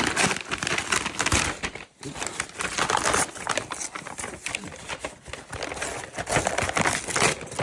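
Packaging crinkling and rustling as a gift box's contents are handled and pulled out: a dense run of irregular crackles and clicks with a short pause about two seconds in.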